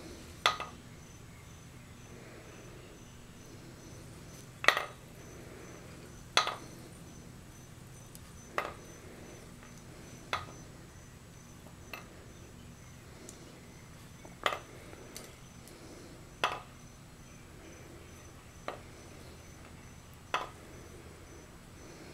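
Sharp metallic clinks, about ten of them, one every two seconds or so, from the forged crankshaft and connecting rods of a 2332cc VW stroker bottom end as they are turned over by hand in a bare aluminium case half. These are the steel parts shifting and tapping as the rods flop over at each part of the turn.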